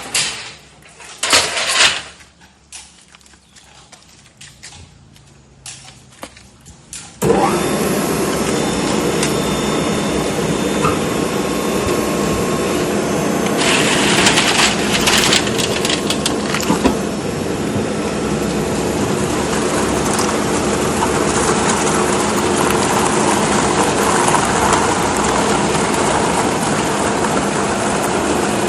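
Metal can baler: a few sharp metallic clatters, then about seven seconds in the machine starts abruptly and runs on loud and steady, with a harsher, noisier stretch in the middle.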